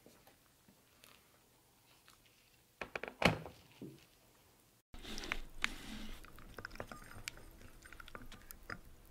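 A porcelain cup and saucer knocking a few times on a wooden counter as the cup is moved, about three seconds in. Later, faint clicks and scrapes of a wooden spoon stirring tea in the porcelain cup.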